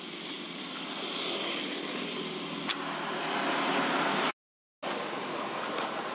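Steady rushing background noise, like outdoor wind or distant traffic, growing slightly louder, with one sharp click near the middle. About four seconds in it drops out to total silence for half a second, then resumes.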